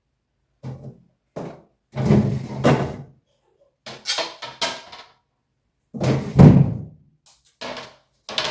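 A series of clunks and knocks, about eight in all, as jars and containers are taken out of and moved about in a refrigerator being cleared out. The loudest comes about six seconds in.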